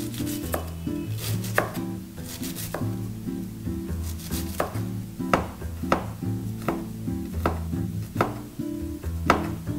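Chef's knife slicing cabbage and then garlic cloves on a plastic cutting board: a series of sharp knife taps against the board about once or twice a second. Background music plays underneath.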